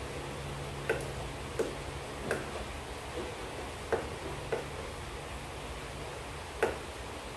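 A hand screwdriver turning a screw into the plastic back of a TV, with about seven sharp, irregular clicks; the loudest comes near the end.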